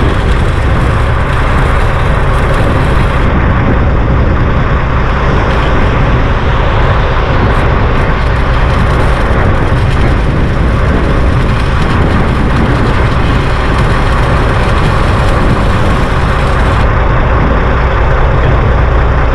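A heavy engine running steadily.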